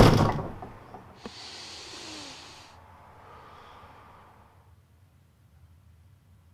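A wooden door slamming shut, ringing out for about a second, then a short click. After it, a long heavy exhale and a second, softer breath.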